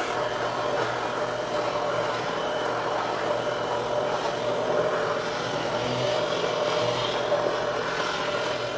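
Handheld immersion blender running steadily with a steady motor hum, its blade churning and chopping chunky vegetable soup with whole cherry tomatoes in a pot.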